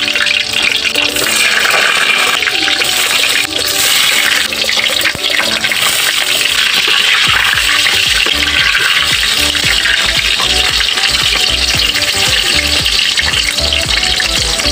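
Eggplant slices sizzling steadily in hot, bubbling frying oil in a wok.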